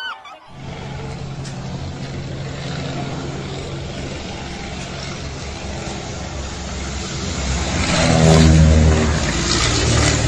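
An engine running steadily with a low hum, growing louder about eight seconds in.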